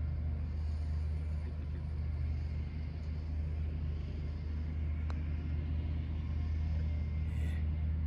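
A single sharp click about five seconds in: a putter striking a golf ball on the green. A steady low rumble runs underneath throughout.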